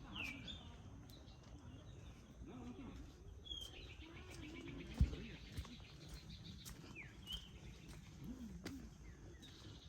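Birds calling now and then, short sweeping whistled notes, over a faint outdoor background, with a single sharp thump about halfway through.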